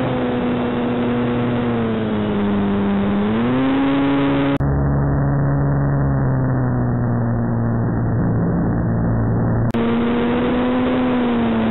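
Electric motor and propeller of a ParkZone Sukhoi SU-29 RC plane whining in flight, heard from a camera on board with rushing air, the pitch dipping and rising with the throttle. The sound changes abruptly twice, about five and ten seconds in.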